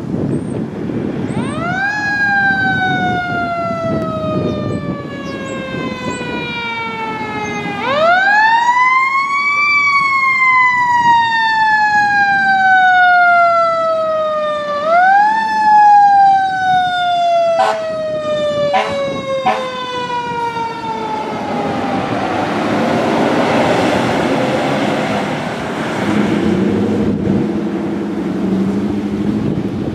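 Fire engine's siren three times winding up quickly and then slowly falling in pitch, with three short sharp blasts about two-thirds of the way in. Near the end it gives way to the broad noise of the truck passing close by.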